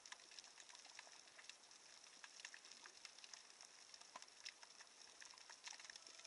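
Faint, dense crackling of many small irregular clicks over a quiet hiss, the kind of crackle heard underwater in the sea.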